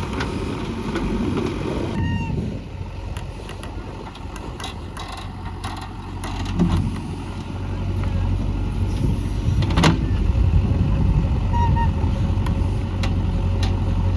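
JCB 3DX backhoe loader's diesel engine running, getting louder about halfway through, with scattered knocks and clanks from the machine at work.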